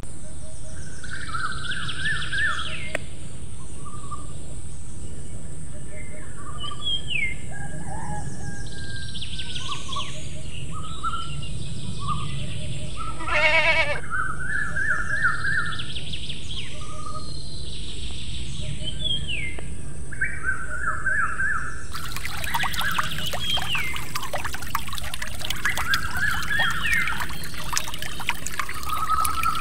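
Birds chirping and singing over a steady background hiss, with a short quavering bleat about halfway through. From about two-thirds of the way in, water trickles and splashes from the spout of a miniature hand pump as its handle is worked.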